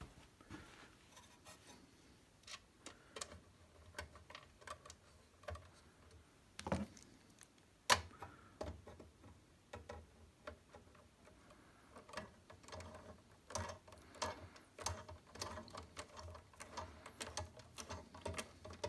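Screwdriver driving a small screw into the amplifier's metal chassis: faint scattered clicks and taps, a sharper click about eight seconds in, then a run of quick light clicks as the screw is turned.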